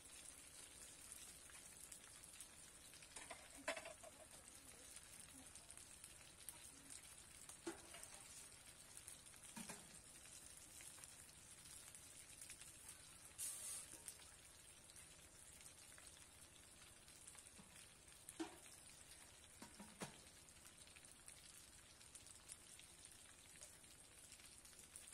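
Chicken pieces and grated coconut frying in plenty of oil in a wok: a faint steady sizzle with scattered crackles and pops, and a brief louder hiss about halfway through.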